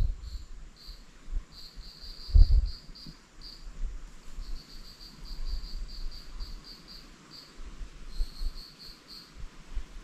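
Insect chirping: short, high chirps repeated in quick runs of several a second, with short pauses between runs. A brief low rumble about two and a half seconds in.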